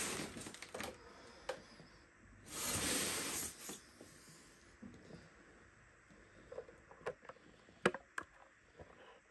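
Cardboard box and packing material being handled: a scraping rustle lasting about a second and a half near three seconds in, then a few sharp knocks and taps.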